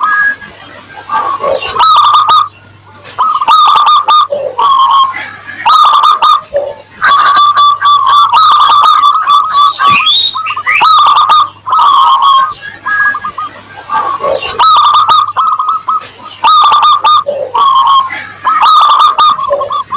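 Zebra dove (perkutut) cooing: phrase after phrase of quick, ringing, clear notes, with short pauses between phrases.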